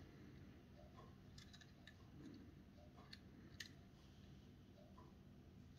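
Near silence, with a few faint light clicks from a small die-cast toy bus being turned over in the fingers.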